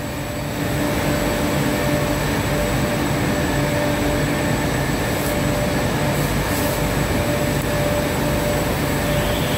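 Steady drone of plastic film (cellophane) production machinery running, with a constant hum; it grows slightly louder about half a second in.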